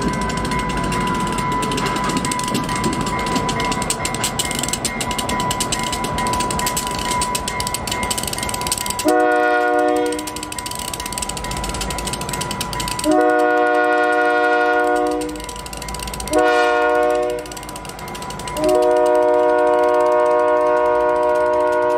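A train rolling past with a clattering rumble and a thin steady squeal. About nine seconds in, a diesel locomotive's air horn sounds a steady chord of several notes four times: short, long, short, then a long blast that is still going at the end.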